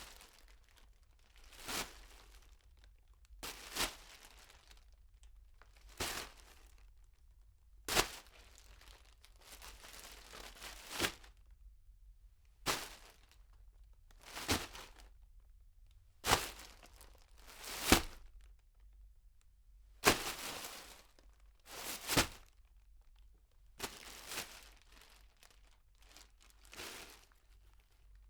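Plastic bag being crinkled and crumpled in a series of short separate bursts, about one every two seconds, with brief quiet between them; heard from a medium distance.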